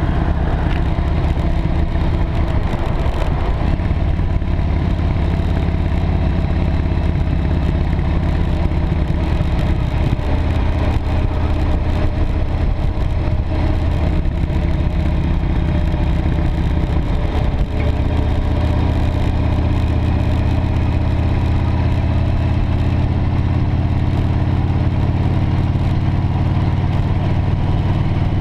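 V-twin cruiser motorcycle engine running at road speed, with steady wind and road noise. The engine note shifts about ten seconds in and again near eighteen seconds, then climbs slowly as the bike accelerates.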